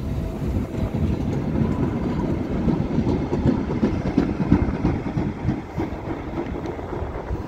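Two coupled Tyne and Wear Metrocars pulling away from the platform and running past close by, wheels and motors rumbling with irregular knocks. The sound eases off in the last couple of seconds as the train gets away.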